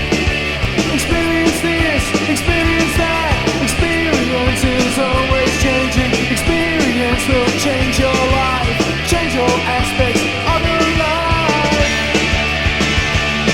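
Rock band recording: drums keep a steady beat under dense electric-guitar-and-bass band sound, with a melody line above that bends in pitch.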